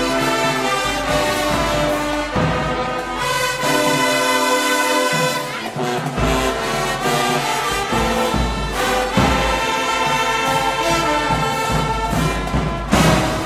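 Marching band brass section of sousaphones and other horns playing full, sustained chords, with a sharp loud accent near the end.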